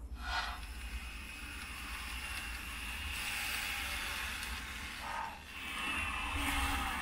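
N-gauge model train (TOMYTEC Tetsudō Collection Hokuriku Railroad 7100 series) running along the track after pulling out of the station: a steady whirring of its small motor and gears with a thin high whine, dipping briefly and growing louder again near the end.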